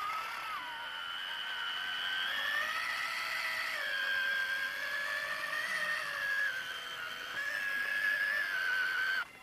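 Electric drive motor and gearbox of a radio-controlled 8x8 model trial truck whining under load as it crawls up over a log, the pitch slowly rising and falling with the throttle, then cutting off suddenly near the end.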